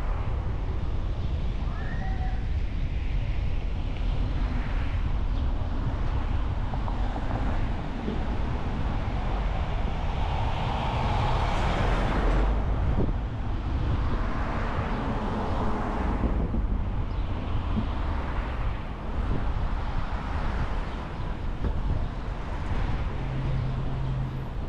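A car driving on a road: a steady low rumble of tyres and engine, with wind buffeting the microphone. The noise swells louder for a few seconds around the middle.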